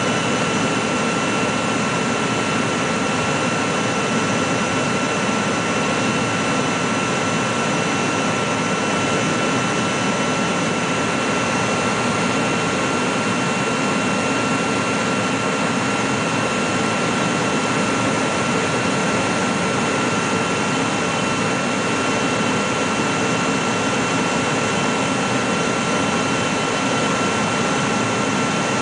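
Cabin noise inside an MD-80 (Super 80) on final approach: the steady rush of air and engine sound of its rear-mounted Pratt & Whitney JT8D turbofans, with a few thin high whining tones held steady over it.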